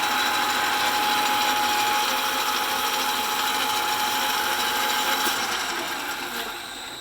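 Vintage 9-inch South Bend Model A metal lathe running under a heavy turning cut in steel, 0.100 inch deep at a slow feed. It makes a steady mechanical running noise with a faint high tone, and dies away over the last second or so as the machine winds down.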